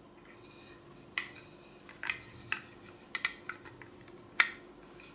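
Light, irregular clicks and taps of small plastic model parts being handled, about ten in all, as a ball joint is pushed against the slots of a plastic model foot; the sharpest click comes past four seconds in. A faint steady hum sits under it.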